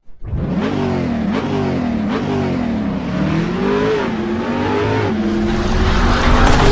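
Car engine being revved again and again, its pitch rising and falling, then held higher and steadier near the end.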